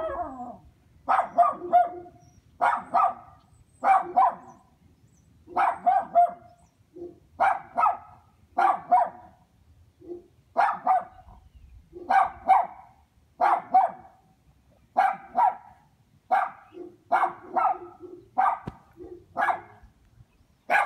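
A dog barking repeatedly and steadily, usually in quick pairs, about one bark group every second and a half.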